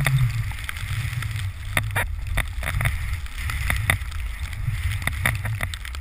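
Wind rumbling over the microphone of a pole-held action camera as a snowboard rides fast through deep powder, with the hiss of spraying snow and a scatter of short sharp knocks and scrapes.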